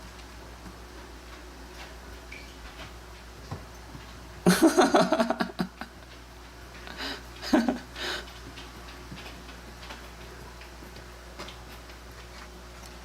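Cats playing and scuffling: a loud burst of rapid scrabbling and clattering about four and a half seconds in, then a few shorter knocks and rustles a couple of seconds later, over a low room hum.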